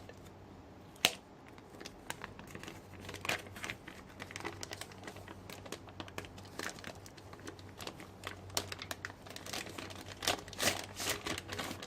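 Clear plastic bag crinkling and rustling as a small electronic device is slid out of it: irregular crackles throughout, with a sharp click about a second in and a denser burst of crinkling near the end.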